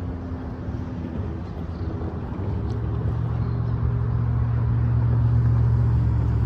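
Steady low motor hum and rumble that comes in about two seconds in and grows louder toward the end.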